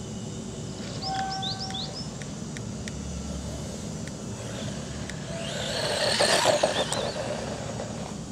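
A small brushed electric RC off-road buggy (FTX Tracer) drives up on dirt, getting louder to a peak about six and a half seconds in, with small ticks of grit, then fading away. Birds chirp briefly about a second in, over a steady low background hum.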